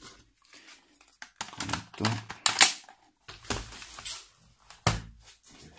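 Hard plastic knocks and clicks as a netbook and its battery pack are handled and the laptop is set down on the table. The knocks come irregularly, the loudest about two and a half seconds in.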